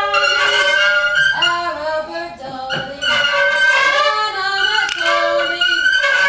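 Music: a loud melodic line of held, wavering notes, with a brief dip about two and a half seconds in.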